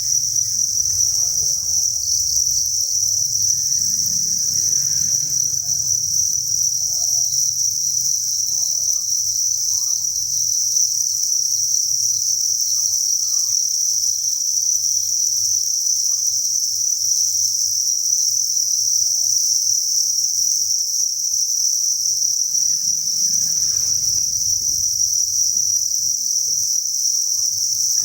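A dense chorus of many crickets chirping in a breeding enclosure. The calls blend into one continuous, high, even trill that stays steady throughout.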